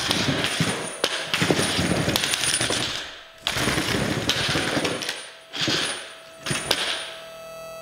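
Small wheeled combat robot driving on a concrete floor, its electric drive running in bursts with jerky starts and stops: the wood-and-metal frame and wheels rattle and clatter, with a few sharp knocks.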